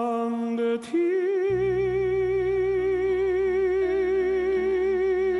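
Male singer holding a long closing note with vibrato, breaking off briefly and stepping up to a higher note about a second in, which he holds. Low, steady orchestral accompaniment swells in underneath.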